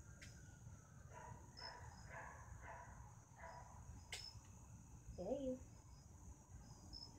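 Crickets chirping faintly, a steady run of short high pulses. Soft murmuring voice sounds in the first half, a sharp click just after four seconds, and a brief gliding hum-like vocal sound about five seconds in.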